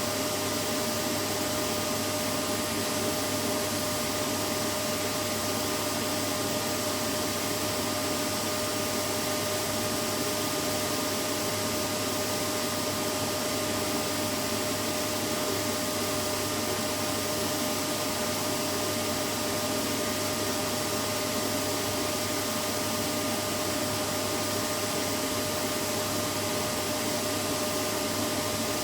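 Vacuum cleaner running steadily: a constant rushing noise with a steady motor whine, unchanging throughout.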